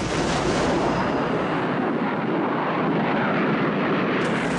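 Steady roar of a military aircraft's engines, a continuous noise without separate blasts or shots.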